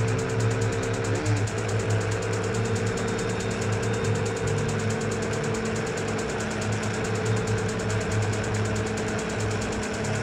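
Lexmoto Michigan 125cc motorcycle's four-stroke engine running steadily under way, heard from a camera mounted on the bike. Its note dips briefly about a second in, then holds steady.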